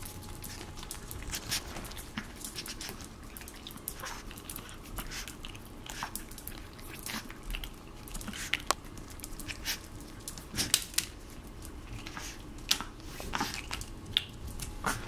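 Chihuahua puppy biting and gnawing on a stick chew held in a hand: irregular sharp clicks and crunches of teeth on the stick, louder a few times in the second half.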